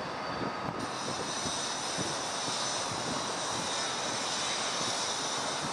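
Steady distant engine rumble, with a faint high-pitched steady whine that grows a little louder about a second in.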